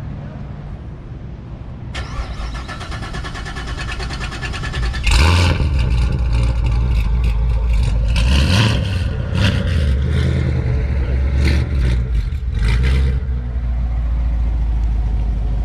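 Modified C7 Corvette Grand Sport's 6.2-litre V8 running with a low rumble that builds over the first few seconds, then revved hard several times in quick succession from about five seconds in. Near the end it settles into a steadier low rumble as the car pulls away.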